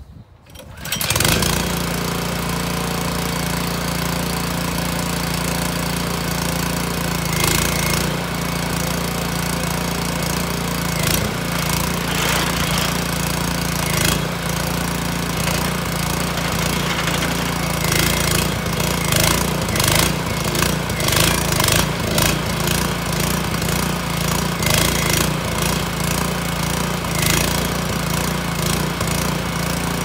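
Small Honda petrol engine of a sawmill's hydraulic power pack starting about a second in, then running steadily while it drives the hydraulic pump.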